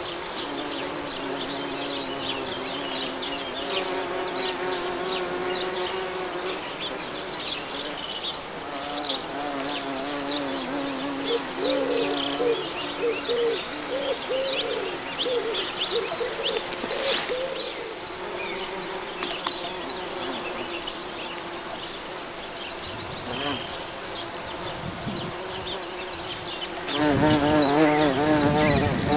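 Bumblebees buzzing as they fly from flower to flower, the buzz wavering in pitch as they move. Near the end a bumblebee flies close and its buzz gets clearly louder.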